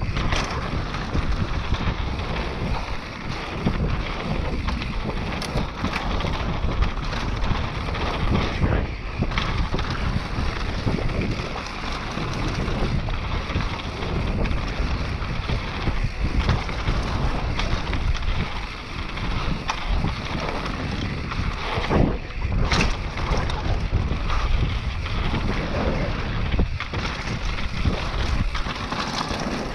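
Mountain bike descending a dirt flow trail: wind buffeting the microphone over the rush of the tyres, with knocks and rattles from the bike over bumps.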